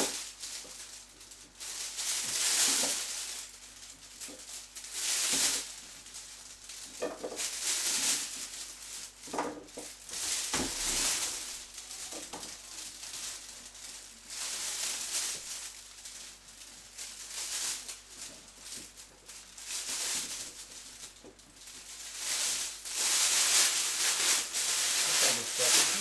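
Clear plastic roasting sleeve crinkling and rustling in irregular bursts as raw potato wedges are dropped into it by hand, louder near the end as the filled bag is gripped and lifted.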